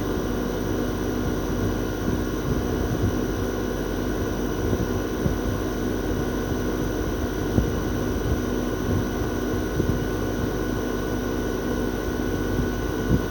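Toshiba RAS-4069AV outdoor unit's twin-rotary inverter compressor running steadily during defrost, with the propeller fan stopped. It is a steady hum made of several held low tones with a thin high whine over it, and a few light ticks.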